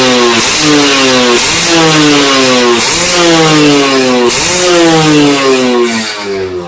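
Kawasaki Ninja two-stroke engine with KIPS power valve being revved in repeated throttle blips: about five sharp rises in pitch, each falling slowly back.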